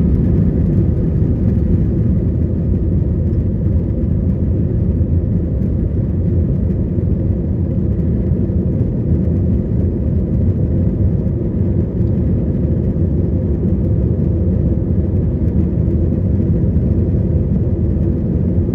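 Cabin noise of an Airbus A321 at takeoff thrust, heard from a window seat over the wing: a loud, steady, deep rumble and whir of the jet engines and airflow as the airliner climbs away after takeoff.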